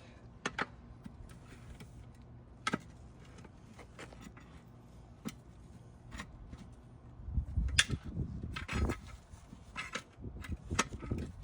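Steel hook tool clinking against the split lock ring and rim of an old split-ring wheel as the ring is worked loose: scattered sharp metallic clicks, the loudest about eight seconds in, with low rumbling handling noise over the last few seconds.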